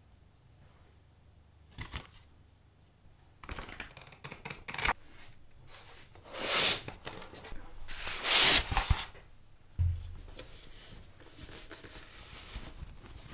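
Speaker packaging being handled and opened: cardboard and wrapping rustling and tearing, with two loud swishes about six and a half and eight and a half seconds in and a low thud near ten seconds.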